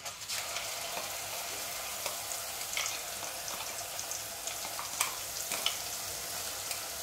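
Wet ground onion-ginger-garlic masala paste sizzling as it lands in hot oil in a kadai. The hiss starts suddenly and holds steady, with scattered crackles and pops.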